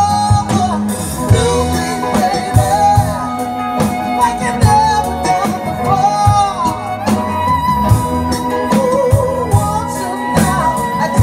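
Live band playing a slow song with singing: vocals over bass, drum kit, electric guitar and violin, with a steady beat.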